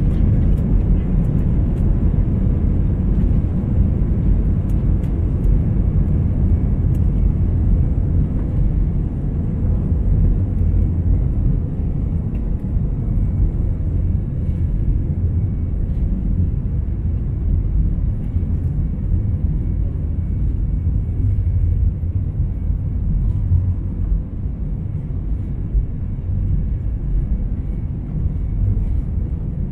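Airbus A321 on its takeoff roll, heard from inside the cabin: the engines at takeoff thrust and the wheels on the runway make a loud, steady, deep rumble.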